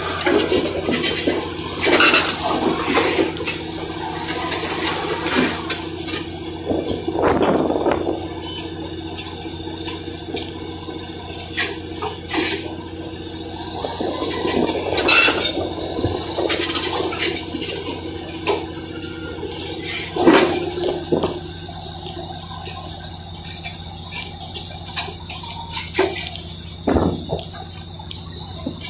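Caterpillar D9 crawler bulldozer working: its diesel engine runs steadily under the repeated clanking of the steel tracks and the crunch and clatter of broken concrete rubble.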